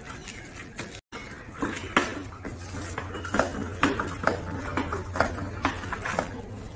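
Hand-pump pressure sprayer tank being pumped up to feed water to a rail drilling machine: a run of sharp, irregular clicks and clinks, about two a second, over a steady low hum.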